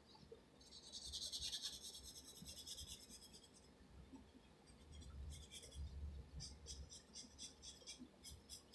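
Faint scratching of a graphite pencil on paper: a longer stroke about a second in, then quick short sketching strokes, about five a second, near the end.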